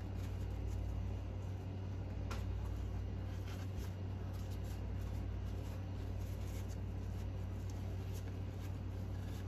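Faint handling noises of small engine parts and a shop towel being worked at a bench: a few scattered light clicks and rustles over a steady low hum.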